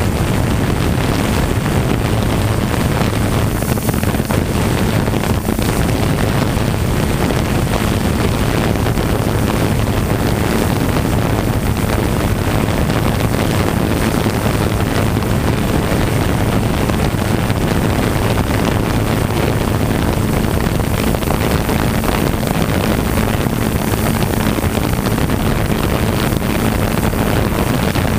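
3DR Solo quadcopter hovering, its motors and propellers giving a steady hum, heard through the camera slung beneath it and mixed with wind rushing over the microphone.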